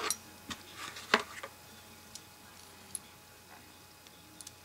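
A few scattered small clicks and taps as a metal vape coil-building jig is handled and its parts fitted together, the sharpest click about a second in.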